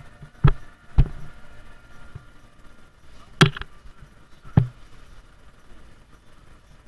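Four sharp thumps inside a car cabin, two about half a second apart, then two more a little over a second apart, over a faint steady hum.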